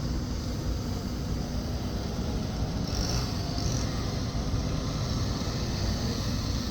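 Chainsaw engines running as a steady, blended drone.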